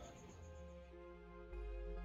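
Soft, slow background music with long held notes; a deeper bass note comes in about one and a half seconds in and the music gets louder.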